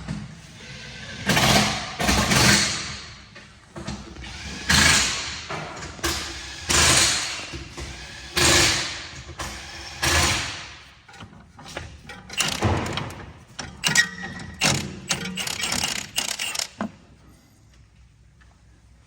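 Ticking and clicking from a BMW G30's front end as the steering is turned: a run of separate sharp ticks, one every second and a half or two seconds, then quicker clusters of clicks. This is the noise the owners hope to cure with anti-seize.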